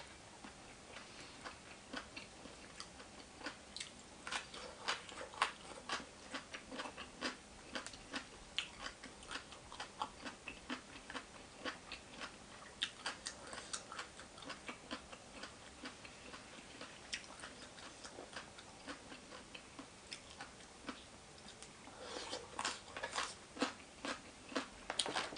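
Close-up eating sounds: a person chewing with the mouth near the microphone, giving irregular wet clicks and smacks, coming thicker and louder near the end.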